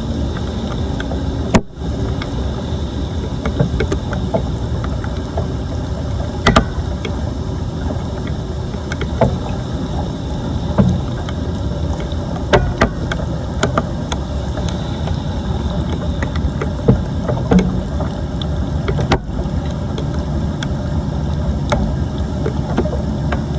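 Steady rushing of floodwater draining into a street drain, with scattered sharp knocks and scrapes of debris being cleared.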